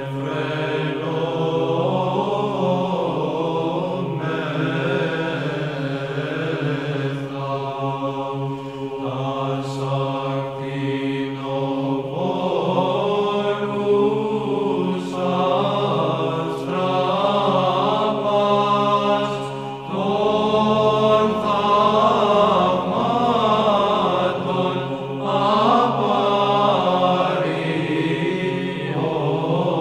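Religious chanting: a voice sings a winding melody over a steady held drone note.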